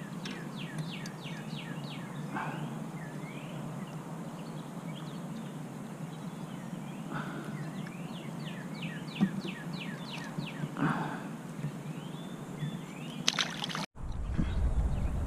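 Outdoor ambience from a kayak on a lake: water lapping at the hull and light handling noise while a small bass is unhooked. A bird twice sings a quick run of falling chirps, near the start and again about eight seconds in. Near the end the sound cuts and wind buffets the microphone.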